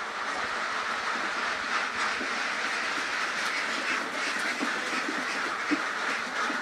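A large flock of ducks quacking all at once, a dense, steady din with no pause.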